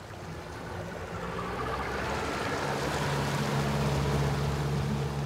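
Small motorboat's engine running steadily and growing louder, a low hum over a rushing noise of water and wind.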